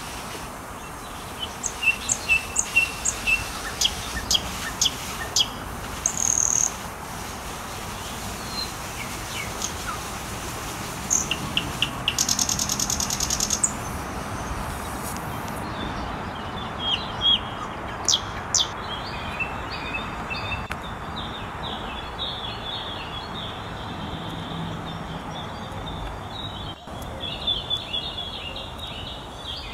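Small birds chirping and tweeting in short repeated calls, with a rapid run of chirps about halfway through, over a steady outdoor hiss.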